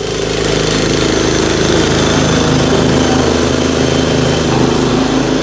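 Petrol walk-behind lawn mower engine running steadily.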